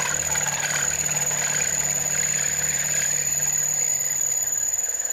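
CNC milling machine spindle running with its end mill cutting into an aluminium plate: a steady machining noise with a constant high whine over it. The low hum drops away near the end.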